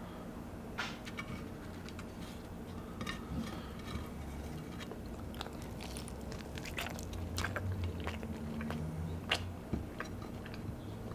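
A person biting into and chewing a soft corn-tortilla taco topped with salsa verde: irregular wet clicks and small crunches, thickest through the middle.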